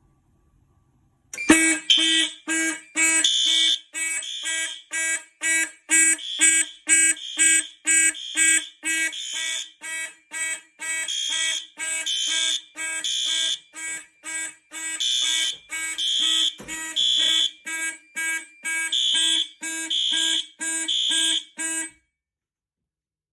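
Several fire alarm horns, including a System Sensor P2W horn strobe on high volume, sounding together in march-time coding at about two pulses a second: the system is in alarm from a manual pull station. The horns come on about a second and a half in, are very loud, and cut off abruptly near the end as the alarm is silenced.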